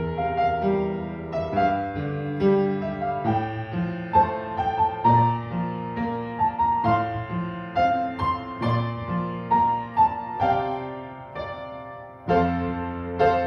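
Piano playing a slow, gentle accompaniment of chords and melody notes. The notes die away just before a loud new chord near the end.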